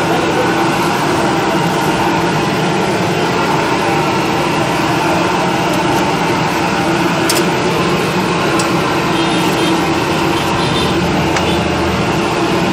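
A steady mechanical rumble and hum that doesn't change, with a couple of faint clicks around the middle.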